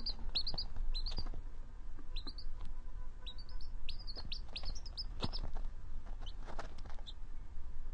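Domestic chicken chick peeping: short, high-pitched peeps that slide downward in pitch, in quick runs of two to four, stopping about seven seconds in.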